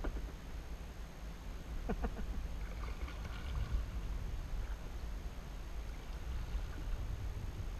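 Water lapping and splashing lightly around a kayak held still in shallow water, over a steady low rumble, with a couple of faint knocks about two seconds in.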